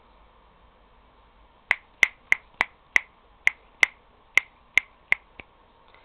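A person's fingers snapping about eleven times in quick succession, roughly three snaps a second, starting about two seconds in, the last one fainter.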